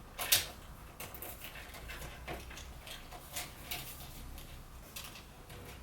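Small clicks and rustling of hands handling cables inside a PC case while fitting the front-panel power switch connector onto the motherboard header, with one sharper click about a third of a second in.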